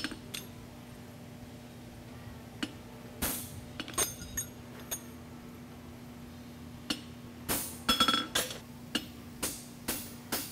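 A small hammer tapping a steel horseshoe against the anvil: a dozen or so irregular, light metallic clinks, with a quicker run of blows about eight seconds in that sets the anvil ringing briefly.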